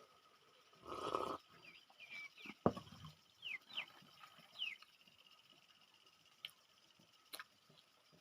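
Peanut shells being cracked and crunched while eating: a crackling burst about a second in, a sharp crack with a dull thud, and two more sharp clicks near the end. Several short, high, falling chirps come in between.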